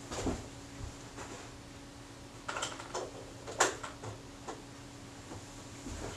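A few faint clicks and light knocks of small tools or parts being handled on a workbench, the sharpest about three and a half seconds in, over a faint steady hum.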